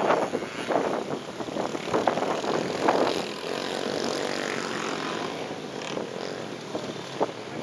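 Motocross dirt bike engines running at a distance, their sound surging and fading as the bikes work around the track.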